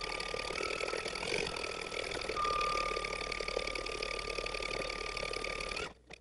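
Computerized embroidery machine stitching out a design, sped up threefold: a dense, rapid needle clatter over a steady high whine. It cuts off abruptly near the end.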